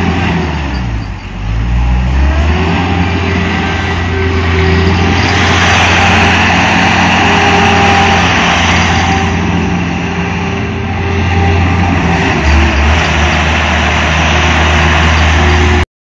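Compact tracked skid steer loader's engine running steadily as the machine drives and turns on its rubber tracks. The engine speed dips and picks back up about a second in. The sound cuts off suddenly just before the end.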